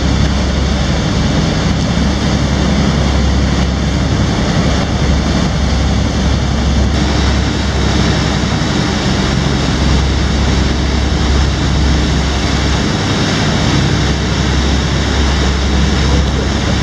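Passenger boat under way: its engine drones steadily, with a low hum under the constant rush of water from the wake.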